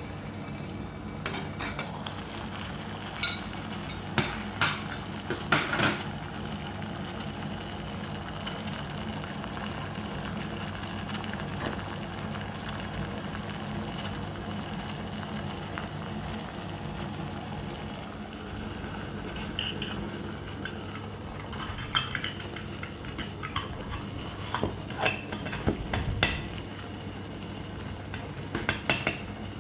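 Light metal clinks and taps of titanium camping cookware: a cluster a few seconds in as the lid comes off the titanium pot, and another near the end as the titanium alcohol stove is handled with a metal tool, over a steady low hum.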